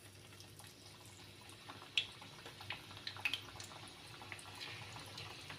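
Gujiya pastries deep-frying in hot oil in a kadai: a faint steady sizzle with scattered small pops and crackles.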